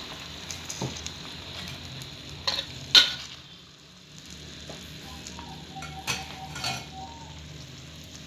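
Fish pieces with shallots and garlic sizzling in a pan with a little added water, the sizzle dying down over the first three seconds or so. A spatula stirs and knocks against the pan several times, the loudest knock about three seconds in.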